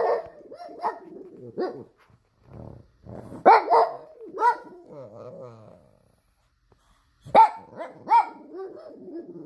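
Pug barking in three short bouts. Each bout has a few sharp barks followed by lower, drawn-out grumbling.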